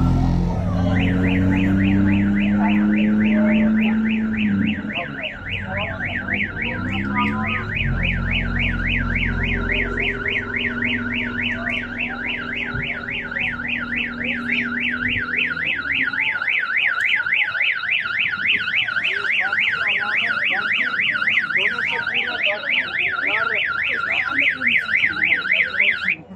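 An electronic alarm siren warbles fast and steadily, rising and falling about four or five times a second, from about a second in. Under it a car engine idles and revs in the first half, then drops away about fifteen seconds in.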